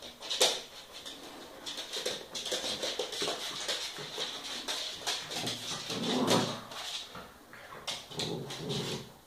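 A white spitz and a small terrier play-fighting: claws scrabbling and clicking on a wooden floor, with dog vocal sounds, longest about six seconds in and again near the end.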